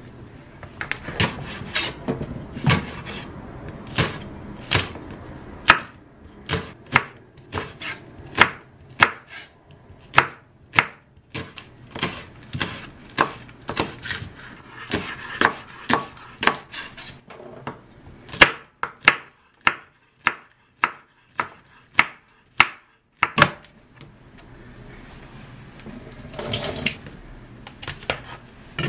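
Chef's knife chopping green onion on a wooden cutting board: a long run of sharp knocks of the blade on the board, one or two a second, stopping about 23 seconds in. Near the end there is a short rustle as the knife cuts open the plastic seal of a tofu pack.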